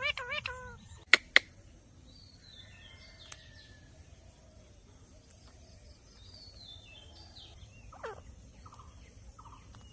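Birds chirping faintly over a steady background hiss, with a short wavering call at the very start, two sharp loud clicks just over a second in, and a falling call about eight seconds in.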